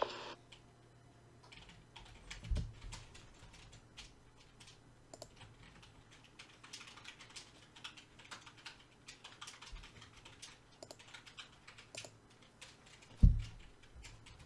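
Keyboard typing: soft, irregular key clicks, with two low thumps, one about two and a half seconds in and one near the end.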